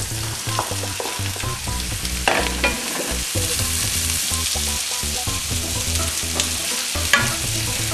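Diced tomatoes sizzling in hot olive oil in a frying pan as they are stirred, a steady frying hiss. Two short knocks come through, one about two seconds in and one near the end.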